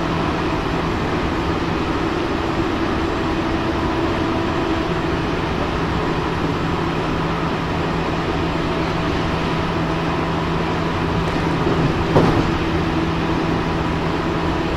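Inside a JR Central 313 series electric motor car (KuMoHa 313-310) running at speed: steady rail running noise with a continuous hum, and a brief louder clatter about twelve seconds in.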